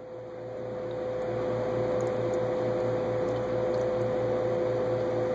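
Carbon dioxide from fermentation bubbling out of a plastic tube into water in a glass vase: a steady, continuous bubbling that builds over the first second or so and then holds level, with a steady hum underneath.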